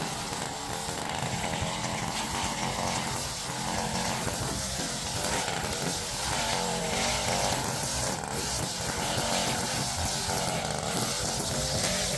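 Small gas engine of lawn-care equipment running steadily at working speed.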